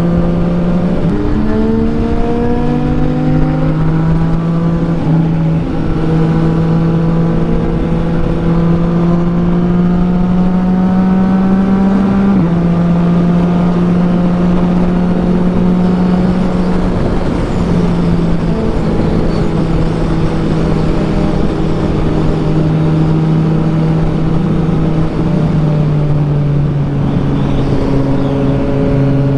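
Yamaha XSR900's three-cylinder engine running at highway speed under the rider, with wind rushing over the microphone. The engine note climbs slowly and drops suddenly in pitch three times: about a second in, about twelve seconds in and near the end.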